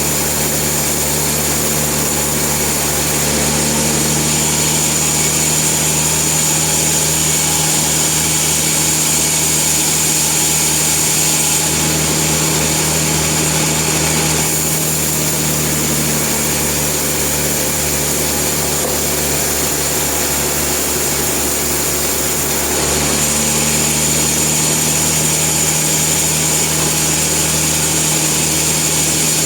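Sawmill running steadily, its saw cutting through a log with a low engine hum and a high whine; the sound shifts slightly a few times and gets a little louder near the end.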